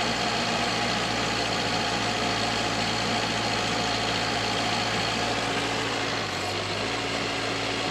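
Sherp all-terrain vehicle's diesel engine running steadily under load as the vehicle struggles to climb a deep-snow slope and cannot get up.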